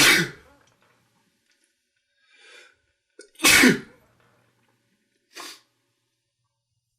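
A man sneezing hard twice, about three and a half seconds apart, with a faint in-breath before the second sneeze and a short, fainter breath near the end. The sneezing comes from allergies.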